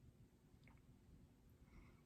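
Near silence: room tone, with a faint click about two thirds of a second in and another faint small sound near the end.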